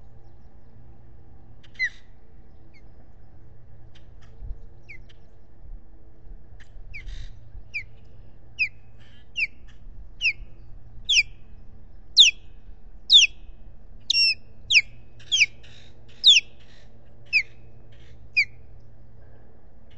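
Osprey calling: a series of short, sharp, down-slurred whistled notes, a few scattered at first, then about one a second and growing louder toward the middle before stopping just before the end.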